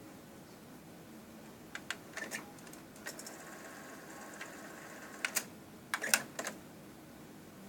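Sony TC-K850ES cassette deck transport clicking as its controls and mechanism engage, with a motor whirring for about two seconds in the middle before another cluster of clicks. The deck's transport is hard to start.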